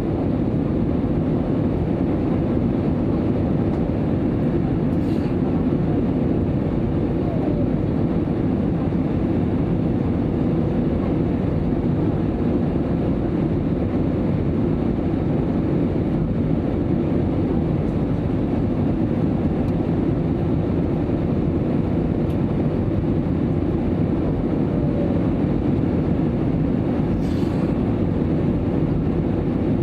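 Steady airliner cabin noise inside an Airbus A320: an even, unchanging rumble of engines and airflow, with a faint steady hum.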